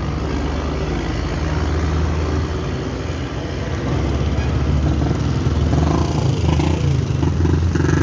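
Mercedes-Benz 1620 truck's six-cylinder diesel engine running with a steady low rumble, getting louder about halfway through.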